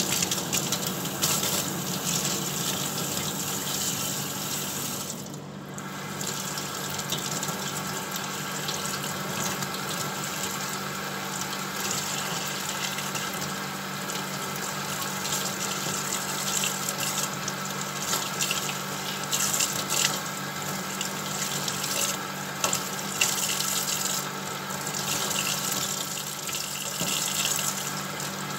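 Kitchen faucet running in a steady stream into a stainless-steel sink, the water splashing over flowers being rinsed by hand. It goes briefly quieter about five and a half seconds in.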